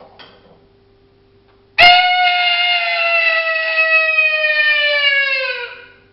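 Coyote howl blown on a mouth diaphragm howler call through a cow horn, which amplifies it. One long howl of about four seconds starts sharply, then slides slowly down in pitch before fading out.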